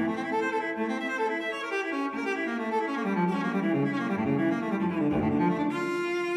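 Background music played by cello and other bowed strings, with sustained notes changing in a melodic line.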